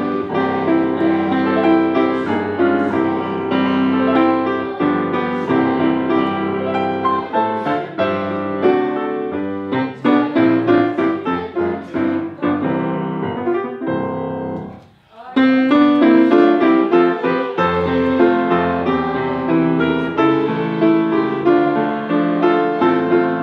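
Grand piano being played: a dense run of notes and chords. The playing breaks off briefly about fifteen seconds in, then starts again.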